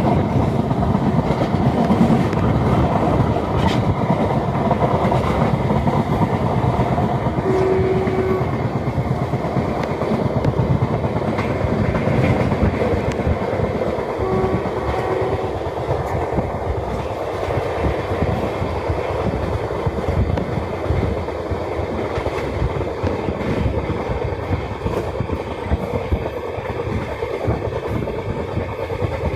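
Train wheels running on the rails: a continuous loud rumble with dense clattering over the track. Two brief faint tones come through, about a quarter and half of the way through.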